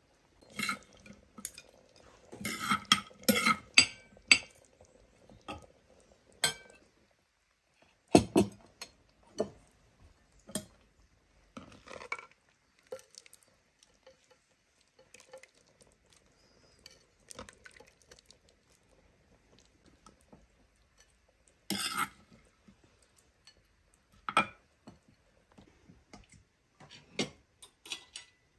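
Metal utensils clinking, knocking and scraping against pots and dishes in scattered, irregular strikes. There is a busy cluster of clinks in the first few seconds, a sharp knock about eight seconds in, and another cluster about twenty-two seconds in.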